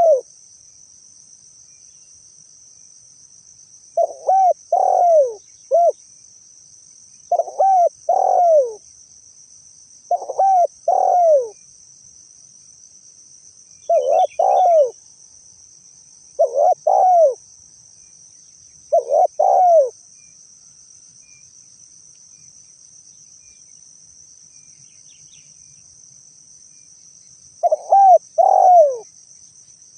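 Spotted dove (tekukur) cooing: phrases of two to four hoarse, falling coo notes repeated every two to three seconds, with a long pause in the last third. A steady high insect trill runs behind.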